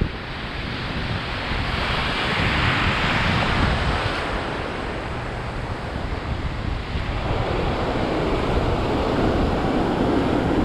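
Atlantic Ocean surf breaking and washing in, with wind buffeting the microphone. A wave surges up about two seconds in and subsides a couple of seconds later.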